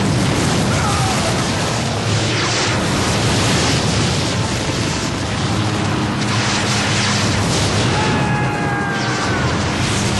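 Loud, unbroken explosion noise from a film's action scene, swelling in several louder surges.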